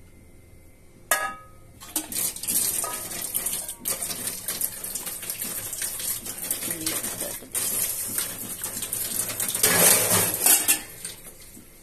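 A metal feeding bowl is set down with a clang that rings briefly about a second in. Then the bowl clatters and scrapes continuously as a dog eats milk, roti and bread from it, loudest near the end.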